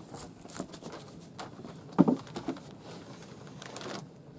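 Wooden board being handled and laid into a low timber frame: scattered light knocks and taps, with one louder wooden knock about two seconds in.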